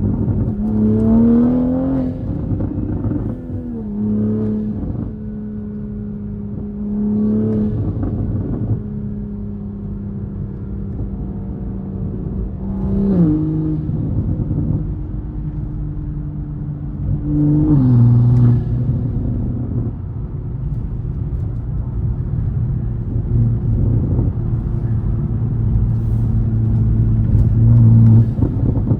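Turbocharged MK5 Toyota Supra engine and exhaust, with a catless downpipe and Tomei single-exit exhaust, driving on the road. The engine note rises under acceleration in the first couple of seconds, then drops in pitch at gear changes about 4, 13 and 18 seconds in, and holds fairly steady in between.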